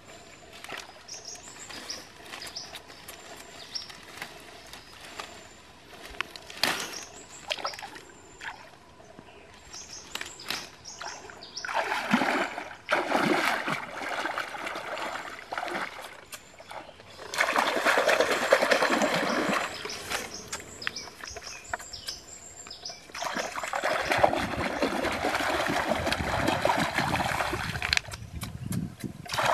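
Hands splashing and sloshing in shallow creek water while groping for mangrove clams, in three loud spells in the second half. Before that, mangrove leaves rustle and snap with light crackles as they are picked off the bush.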